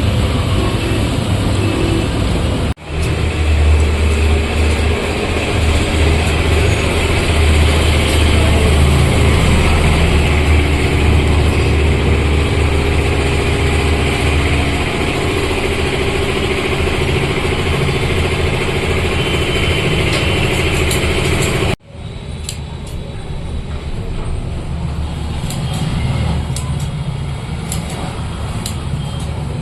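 A motor-driven sharpening machine running steadily with a low hum and grinding hiss while scissors are sharpened. The sound cuts off abruptly twice, and the last part is lighter with scattered clicks.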